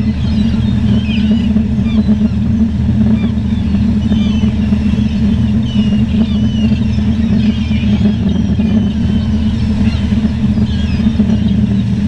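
A low, steady engine drone, the loudest sound, with a crowd of seagulls calling constantly above it in many short rising and falling cries.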